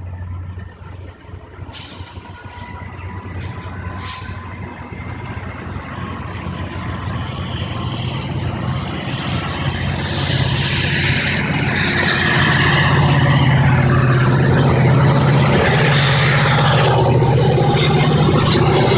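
Caltrain diesel locomotive pushing a departing commuter train, its low engine drone growing steadily louder as it comes closer and draws level. A few light clicks sound in the first few seconds.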